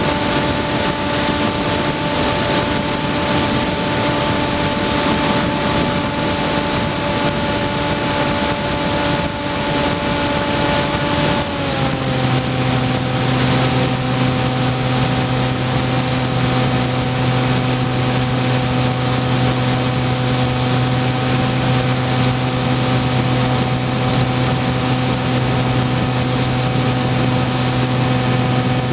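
Onboard sound of a Skywalker FPV model plane in flight: a steady whine from its electric motor and propeller over a rush of air. About twelve seconds in the pitch steps down and then holds, as the throttle is eased back.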